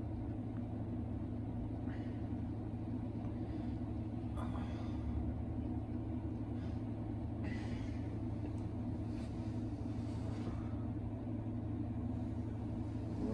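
Steady low hum of room background noise, with a few faint rustles of bedding as a person shifts and sits up in bed.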